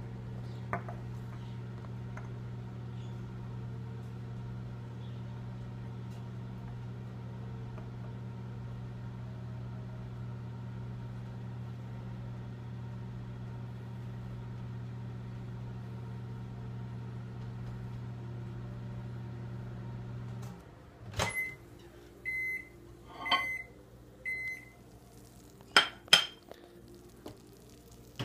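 Microwave oven running with a steady low hum through a 40-second heating cycle, then shutting off about 20 seconds in with a click. Four short high end-of-cycle beeps follow about a second apart, and two sharp clacks come near the end.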